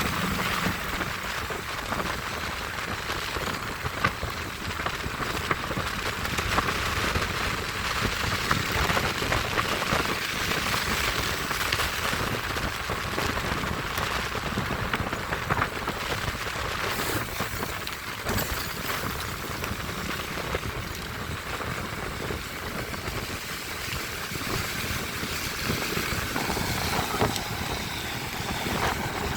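Steady rain with many small drop ticks, over the hiss of tyres and traffic on a wet road.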